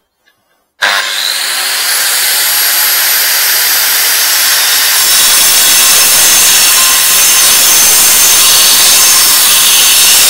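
Hikoki angle grinder cutting into a concrete paving slab: it starts suddenly about a second in and then runs loud and steady with a gritty, high-pitched cutting noise.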